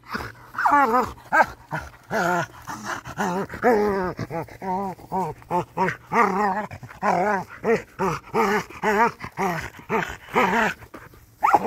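A dog vocalizing without pause in play: a long run of short, whiny calls, two or three a second, their pitch wobbling up and down.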